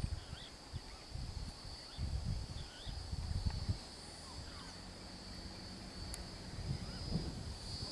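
Steady high-pitched insect drone from the roadside forest, with a few short bird chirps. Irregular low rumbles, loudest about two to four seconds in and again near the end.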